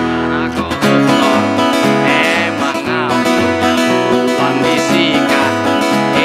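Acoustic guitar strumming and mandolin picking together in a steady rhythm, with a low bass note repeating about twice a second.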